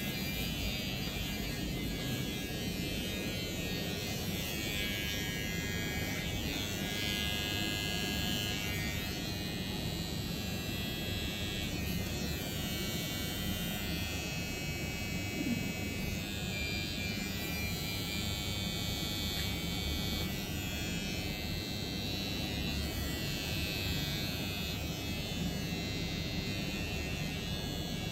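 Electric hair clippers running steadily through a haircut.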